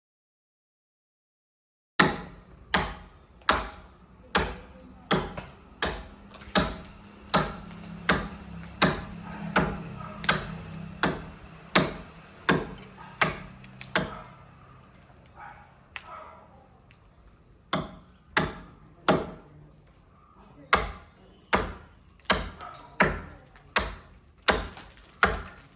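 Axe chopping into a tree trunk, one stroke roughly every three-quarters of a second. The chopping starts after about two seconds of silence, pauses for a few seconds midway, then resumes.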